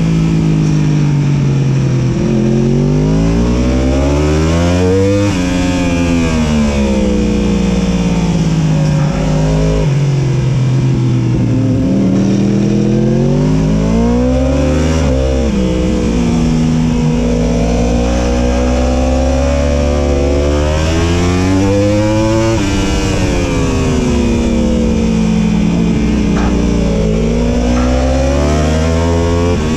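2018 Yamaha YZF-R1's crossplane inline-four engine at full track pace, its pitch climbing and dropping several times as the bike accelerates hard and then slows.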